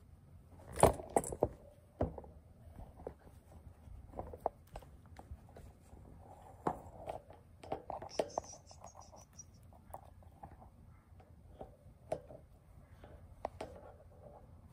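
Kitten playing with a fluffy wand toy on a fabric hammock: scattered light scratches, taps and rustles of paws, claws and cloth, with a louder flurry about a second in.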